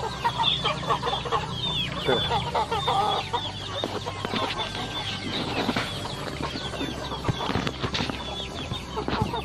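A mixed yard flock of Bangkok, Pelung and kampung chickens clucking, with many short calls overlapping throughout. A few knocks near the end.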